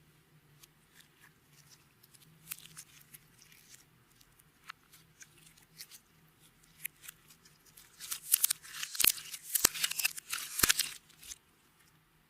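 Clear slime being worked by hand, giving scattered sticky clicks and pops, then a dense run of loud crackling about eight seconds in that lasts some three seconds.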